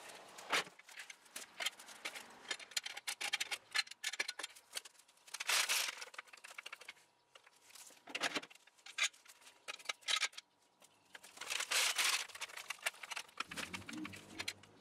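A hydraulic floor jack is being worked under the front of a vehicle and steel jack stands are set, giving a run of metal clicks and knocks. Louder scraping bursts come about five and a half, eight and twelve seconds in.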